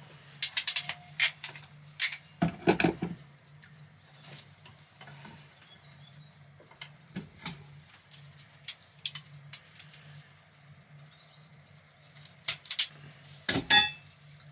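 Hand tools clicking and snipping on electrical wires and spade connectors: scattered sharp clicks in small clusters, heaviest around two to three seconds in and again near the end, over a faint steady low hum.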